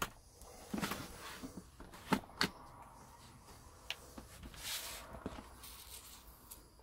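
Sharp plastic clicks and taps from a laptop's clip-fastened plastic top case being prised at and handled, the two loudest a little after two seconds in, with a brief rubbing sound about five seconds in.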